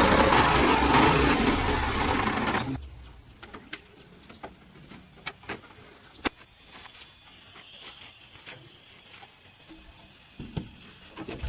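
A heavy engine running, stopping abruptly a little under three seconds in, followed by scattered light clicks and taps.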